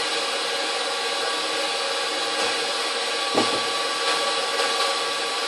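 KitchenAid 6-quart bowl-lift stand mixer running steadily, its wire whisk whipping egg whites into meringue. One short knock about three and a half seconds in.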